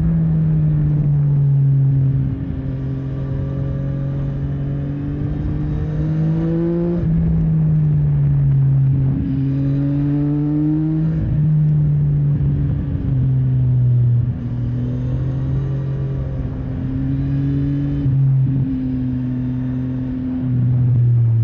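CFMOTO 675NK's three-cylinder engine pulling under throttle. Its note climbs and drops back at each gear change, three times in the first half and then with smaller dips.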